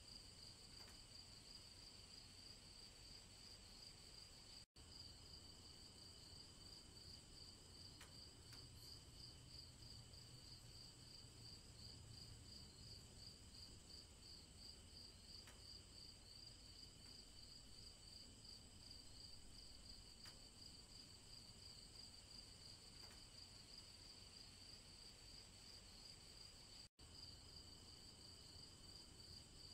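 Faint, steady trilling of crickets, a fast even pulse, over a low rumble; the sound drops to silence for an instant twice.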